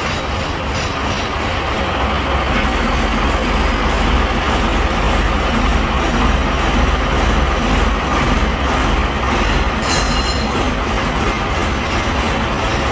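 Scania P82H truck's diesel engine running steadily just after starting, a loud, even low rumble.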